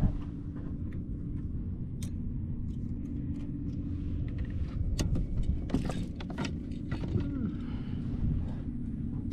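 A steady low motor hum, with a few sharp clicks and knocks scattered through it.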